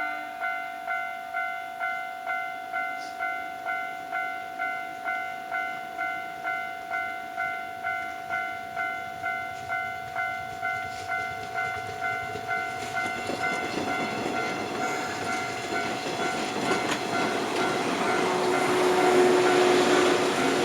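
Japanese railway level-crossing warning bell ringing in a steady rhythm, about two dings a second, at a crossing that has broken down. From about halfway in, the rumble and wheel noise of a train slowly crossing grows louder, peaking near the end.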